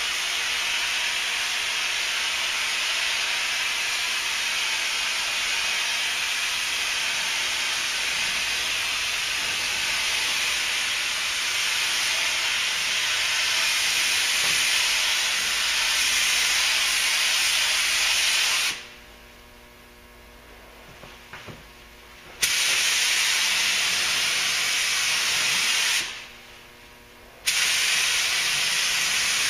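Gravity-feed spray gun hissing steadily as it sprays 2K sealer. The trigger is let off twice, about two-thirds of the way through for a few seconds and again near the end for about a second, and each time the hiss stops and restarts abruptly.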